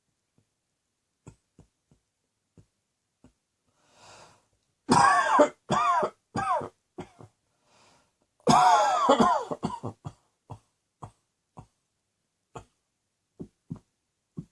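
A person coughing in two fits: a breath, then several harsh voiced coughs about five seconds in, and a second burst of coughs around eight and a half seconds. Short faint clicks fall between the fits.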